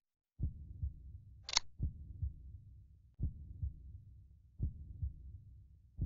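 Slow heartbeat sound effect: low double thumps, a pair about every one and a half seconds. A short hiss cuts in briefly about a second and a half in.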